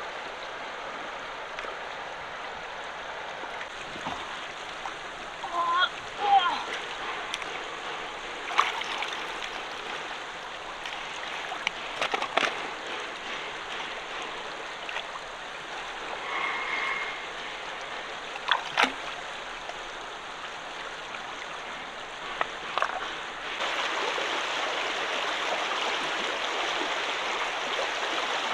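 Shallow flowing water rushing steadily, with occasional splashes and sharp knocks. The rush grows louder near the end.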